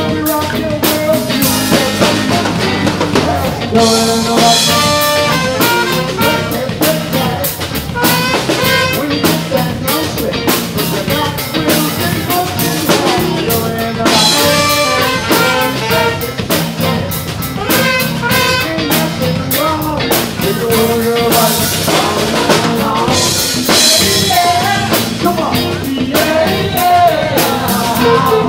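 Live band playing a dance number: a drum kit keeping a steady beat under electric guitars, keyboard and horns.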